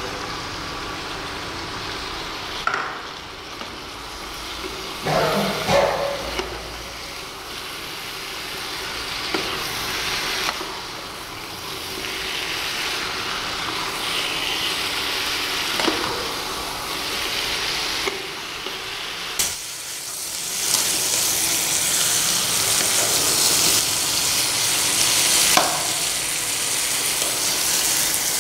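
Raw chicken pieces and tomato frying in oil in a pan, sizzling while a metal slotted spoon stirs them, with a few short knocks of the spoon against the pan. The sizzle gets louder about two-thirds of the way through.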